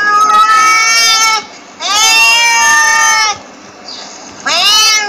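Cat meowing: three drawn-out meows, the first two each more than a second long, the third shorter near the end.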